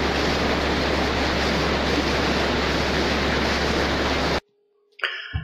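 Swollen, fast-flowing Ganges rushing past: a steady roar of water that cuts off suddenly about four seconds in.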